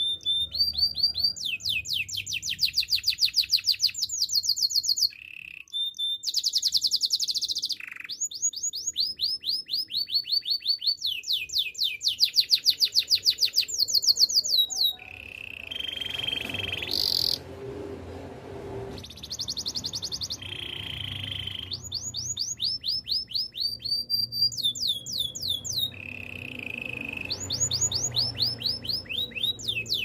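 Canary singing: long runs of very fast trills, each a quick repeated rising note, broken by short held whistles and brief pauses.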